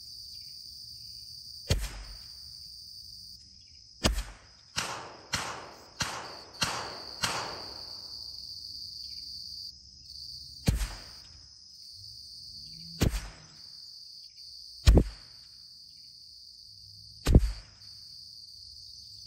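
About a dozen .22 rimfire rifle shots, heard from beside the target downrange. There is a single crack, then a quick run of six shots about half a second apart, then single shots every two seconds or so. A steady high buzz of insects runs underneath.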